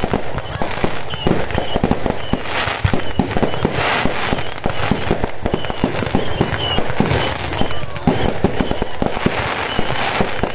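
Fireworks going off continuously: a dense, unbroken crackle of many small pops and bangs in quick succession.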